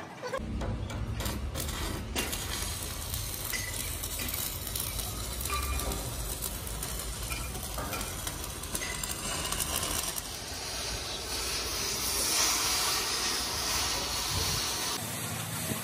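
Arc welding on an excavator bucket's steel, a steady crackle. About ten seconds in it gives way to a gas cutting torch cutting through the bucket's steel, a brighter, higher hiss.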